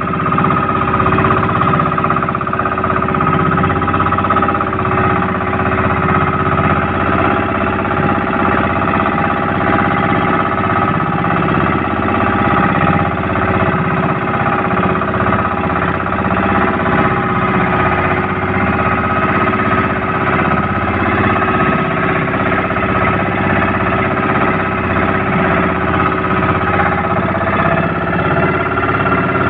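Outrigger fishing boat's engine running steadily at trolling speed: an even drone with a steady high whine, no change in pitch throughout.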